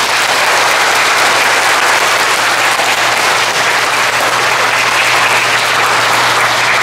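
A congregation applauding steadily: many hands clapping at once.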